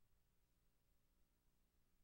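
Near silence: only a faint, steady low hum and hiss.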